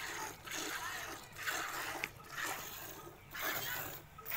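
Hand milking a cow into a metal pail that already holds milk: jets of milk hiss and splash into the pail in a steady rhythm, about one squeeze a second.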